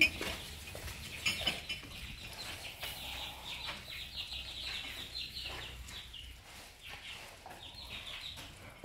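Chickens clucking and chirping, a dense run of short repeated calls, with a sharp knock right at the start.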